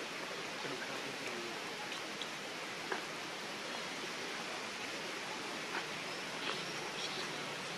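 Steady, even outdoor background hiss with a few faint short clicks, the sharpest about three seconds in.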